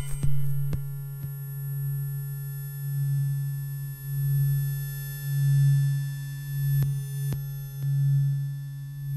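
Electric fish discharges picked up by antennas and played through speakers as a low electronic tone. The tone swells and fades about once a second, with a few faint clicks.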